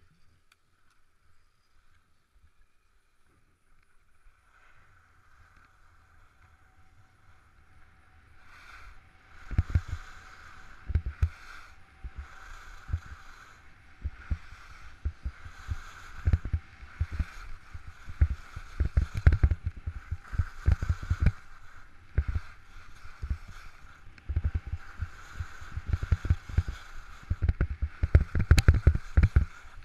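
Skis sliding and scraping on packed, groomed snow, with wind buffeting the action camera's microphone in heavy low thumps once the skier gets moving about a third of the way in. The scraping hiss swells and fades in waves every second or two as the skier turns.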